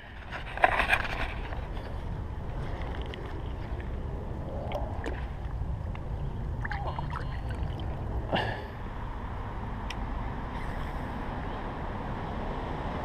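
Steady low outdoor rumble with a few brief knocks and rustles, the sharpest about eight seconds in.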